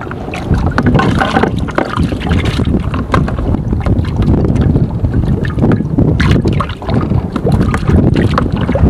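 Wind buffeting the microphone over water lapping around a floating walkway, a steady low rumble with scattered small clicks and knocks.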